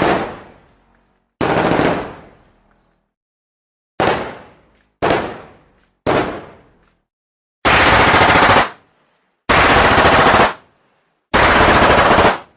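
Gunfire sound effects: a few single gunshots, each with a fading echo tail, then three bursts of automatic fire about a second long each.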